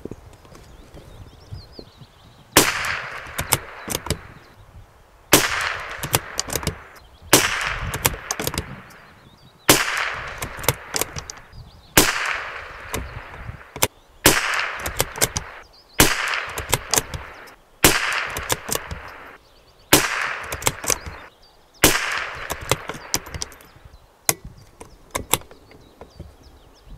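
Tikka T1x bolt-action .22 LR rifle firing ten subsonic Norma Match-22 rounds as fouling shots, one about every two seconds. Each shot is a sharp crack with a short echo, followed by the clicks of the bolt being worked before the next shot.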